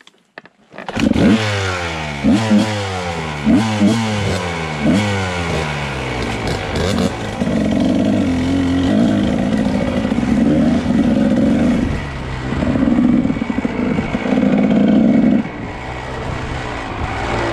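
2001 Kawasaki KDX 220's two-stroke engine firing up about a second in. It is revved in a series of quick throttle blips, then pulls steadily under load as the bike rides off, the pitch swelling and dropping with the throttle.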